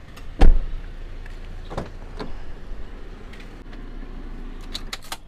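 Car door shut with one loud thump about half a second in, followed by a few lighter clicks and knocks as the doors are handled.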